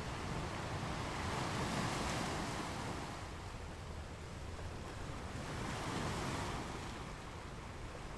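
A steady rushing noise with no tone in it, swelling twice: once about a second in and again about six seconds in.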